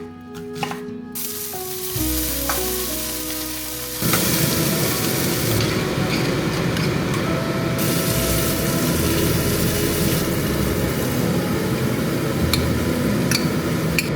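Food sizzling in a hot frying pan, starting suddenly about four seconds in and holding steady, with a few sharp clicks of a utensil being stirred near the end. Soft background music plays throughout, alone before the sizzling starts.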